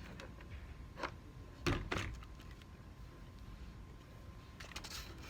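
Brad nailer firing a nail into a wooden slat: one sharp snap a little under two seconds in, with lighter clicks and knocks from handling the tool and the wood around it.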